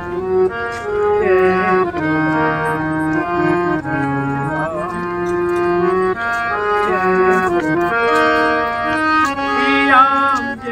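Hand-pumped harmonium, an Indian reed organ, playing a melody over low held notes.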